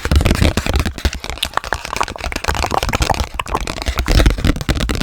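Dense, rapid tapping and crinkly handling of Hello Kitty Uno cards right at the microphone: a continuous run of small clicks and scratches with soft low thumps under them.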